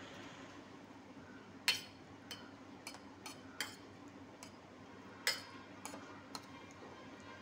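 A steel spoon clinking against a stainless steel bowl while stirring flattened rice soaked in tea: about nine irregular clinks, the loudest about two seconds in and about five seconds in.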